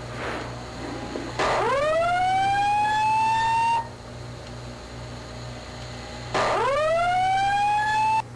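Fire alarm voice-evacuation system sounding its whoop tone: two long rising sweeps, each a little over two seconds, with a pause before and between them.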